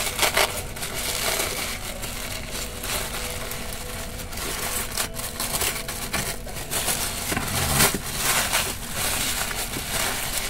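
Plastic packaging crinkling and rustling in irregular crackles as a diecast model is handled and unwrapped.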